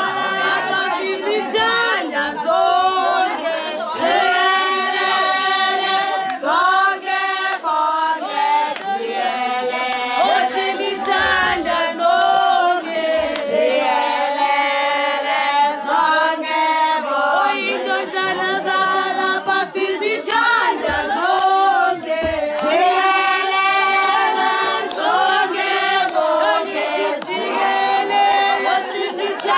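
A group of women singing a traditional Xhosa song together, unaccompanied, with scattered sharp claps through it.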